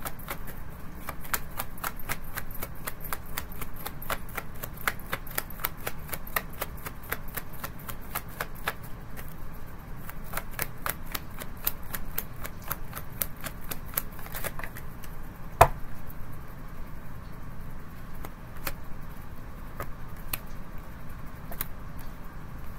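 Tarot deck being shuffled overhand by hand: a dense, rapid patter of card clicks for about fifteen seconds, then sparser clicks. One sharp knock about fifteen seconds in.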